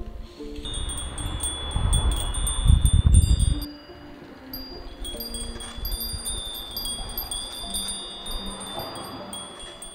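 Wind chimes ringing, many high bell tones struck again and again in a steady jingle. A louder low rumble of wind on the microphone comes from about two to three and a half seconds in.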